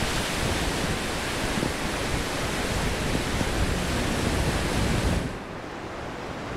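Breaking surf and wash on a sandy beach, a steady rushing noise with wind on the microphone. About five seconds in it drops abruptly in level and loses most of its hiss.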